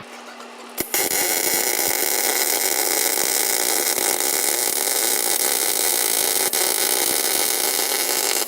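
MIG welding arc on galvanized steel tubing: a loud, steady crackling hiss that starts abruptly after a click about a second in and keeps going.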